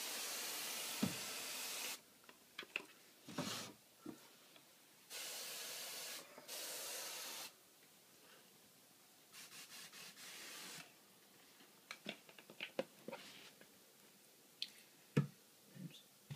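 A snake hissing in several long, even breaths, then scattered light taps and knocks.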